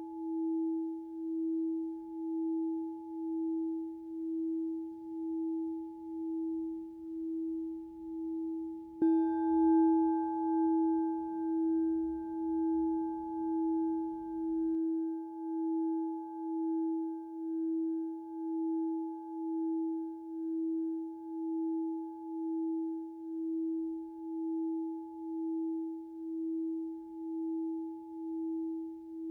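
Singing bowls ringing: a sustained low bowl tone with a slow wobble that pulses about once a second. A bowl is struck about nine seconds in, adding a brighter ring that fades over several seconds.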